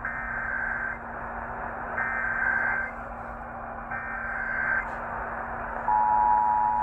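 Emergency Alert System SAME header: three screeching data bursts of about a second each, a second apart. About six seconds in, the steady two-tone EAS attention signal begins. It is heard through a radio receiver, with hiss and a low hum underneath.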